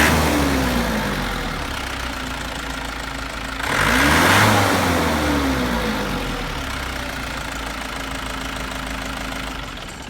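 Mitsubishi J53 Jeep's turbo diesel engine running, blipped twice: it is falling back from a rev at the start and rises and falls again about four seconds in, then settles to a steady idle. The engine stops just before the end.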